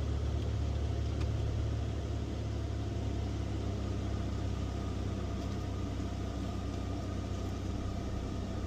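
Electric car's cabin climate blower running steadily, with a low hum from the coolant pumps underneath while the car runs a coolant purge.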